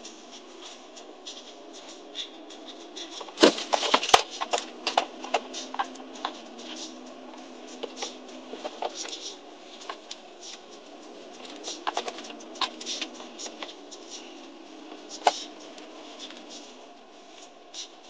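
Rattles, clicks and knocks inside an off-road vehicle's cabin as it drives over sand dunes, over a steady running noise. The loudest burst of clattering comes about three and a half seconds in, with scattered sharp clicks after it and one more sharp knock near the end.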